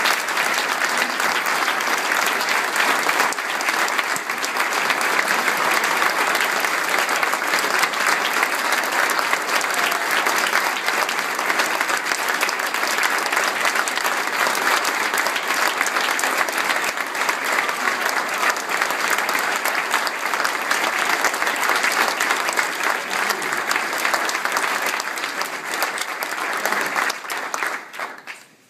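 Audience applauding, dense clapping that holds steady and then dies away near the end.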